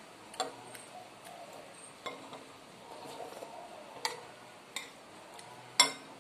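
Metal spoon and fork clinking and scraping against a plate while eating, with five sharp clinks spread through, the loudest near the end.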